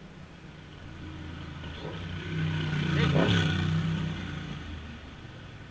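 A motor vehicle passing by: its engine grows louder to a peak about three seconds in, then fades away.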